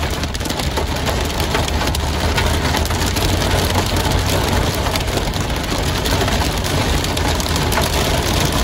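Dime-sized hail and heavy rain pelting a moving vehicle, a dense, steady clatter of many small hits over the low rumble of the vehicle on the road.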